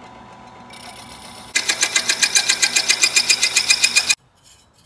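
Bridgeport milling machine's end mill cutting a slot in a thin metal case. The spindle runs steadily at first; about a second and a half in, the cutter bites into the metal with a loud, fast rhythmic chatter of about eight pulses a second, which stops abruptly near the end.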